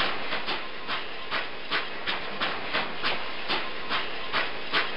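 Steam-locomotive chugging sound effect for a toy steam engine: even, rhythmic chuffs, about two to three a second, over a steady hiss of steam.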